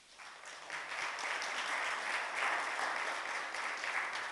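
Congregation applauding, the clapping building up over about the first second and then holding steady.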